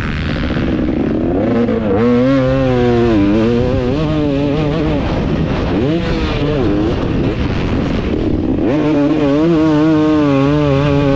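KTM 250 SX two-stroke motocross engine, fitted with a KTM factory pipe and a Pro Circuit R304 shorty silencer, revving hard. The pitch climbs and holds, drops off briefly, then climbs again several times as the rider throttles on and off. Wind is heard rushing over the helmet-mounted microphone.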